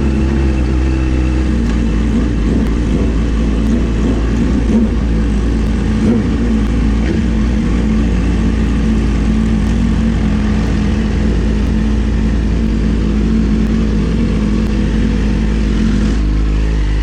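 Sport motorcycle engine running at a fairly steady pitch, with a heavy low wind rumble over the microphone; the engine note shifts about a second and a half in and again near the end.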